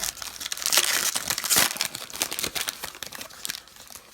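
Wrapper of a pack of trading cards being torn open and crinkled by hand, a busy crackling loudest in the first two seconds and tapering off near the end.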